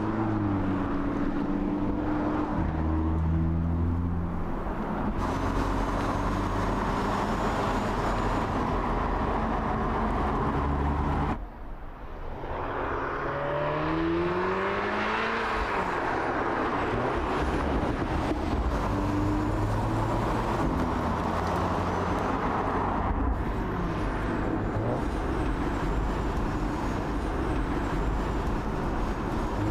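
2017 Audi S3 Cabriolet's turbocharged 2.0-litre four-cylinder engine pulling hard. Its pitch climbs several times, with gear changes between the climbs. The sound dips briefly about twelve seconds in.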